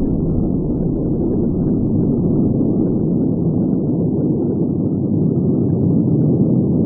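Low, continuous rumble of an atomic bomb explosion.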